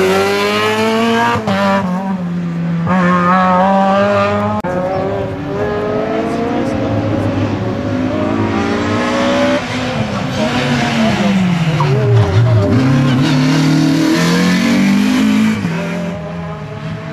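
Race-prepared Renault Clio hatchback engines revving hard through the gears, each climb in pitch breaking off at an upshift. The revs fall away for a couple of seconds past the ten-second mark, then climb again.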